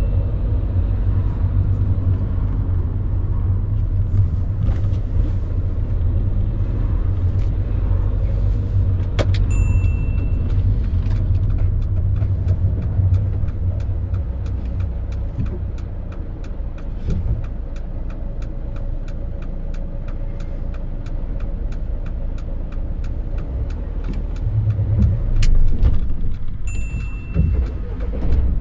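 Engine and road noise inside a moving car's cabin, a steady low rumble. From about ten seconds in, a regular ticking runs on to the end, and there are two short high beeps, one about ten seconds in and one near the end.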